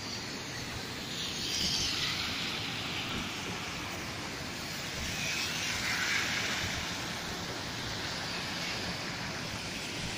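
Cars driving through a flooded street, their tyres hissing and throwing spray through the standing water, swelling as they pass about two seconds in and again about six seconds in, over a steady wash of water noise.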